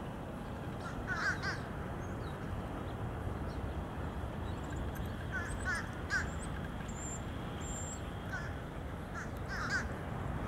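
Crows cawing in short groups of calls, about a second in, around six seconds and again near the end, over a low, steady background rumble.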